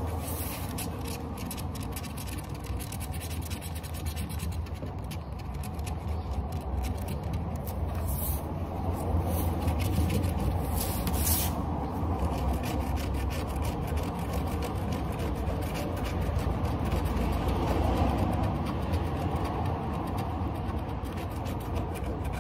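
Scratch-off lottery ticket being scraped, a long run of quick rough scratching strokes over a steady low hum.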